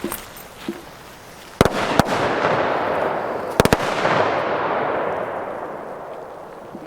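Small fireworks going off: two sharp bangs about a second and a half in, then a loud rushing noise that slowly fades away, with a quick cluster of three bangs near the middle.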